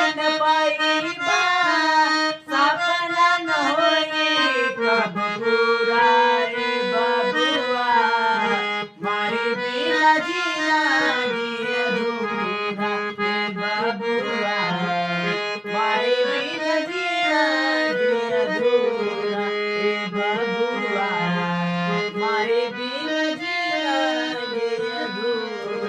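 Traditional Indian folk music: a sustained reed-like melody with a sliding, ornamented line, accompanied by tabla.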